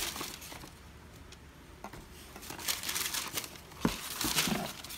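Tissue paper in a cardboard shoebox rustling and crinkling as it is handled, in two spells: at the start and again from about halfway through. One sharp knock about four seconds in, the loudest sound.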